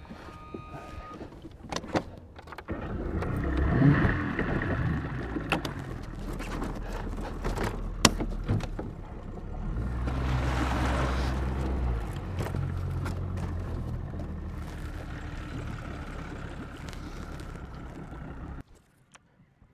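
Mercury outboard motor on a bass boat running under way, getting loud about three seconds in and holding steady, with a few sharp knocks. It stops abruptly near the end.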